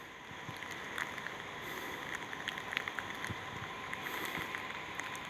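Outdoor wind and light rain, a steady even hiss with scattered faint ticks.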